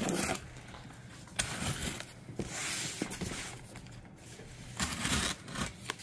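A utility knife slitting packing tape on a cardboard box: about four short scraping strokes with quiet gaps between them.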